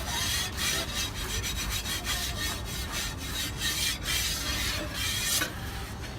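Scraping on a hot regag griddle, a quick irregular run of rasping strokes as the thin bread is smeared or chipped off the metal.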